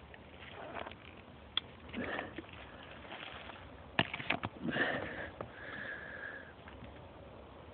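Smooth-haired Jack Russell terrier sniffing hard in bursts down a rabbit burrow, with a few sharp clicks about four seconds in.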